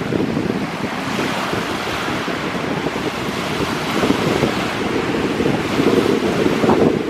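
Lake Superior waves breaking and washing up the shore, a hissing wash that swells about a second in and eases off a few seconds later, with wind buffeting the microphone throughout.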